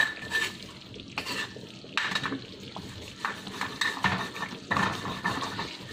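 A spatula scraping and stirring around a metal wok of thick, simmering rendang in a series of irregular strokes about a second apart, some with a brief metallic ring. The constant stirring keeps the coconut-milk sauce from catching and burning on the bottom.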